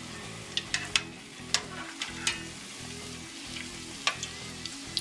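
Chimichangas deep-frying in hot oil: a steady sizzle broken by several sharp pops and crackles.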